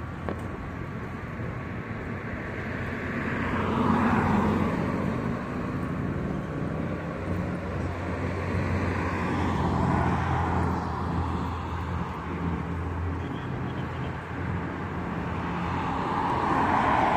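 Street traffic: cars pass by one after another, each swelling up and fading, at about four, ten and seventeen seconds in, over a steady low engine hum.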